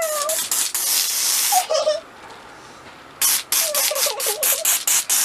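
Aerosol cans of Silly String spraying: one long hissing spray lasting about a second and a half, then a run of short squirts at about four a second. A girl squeals between the sprays.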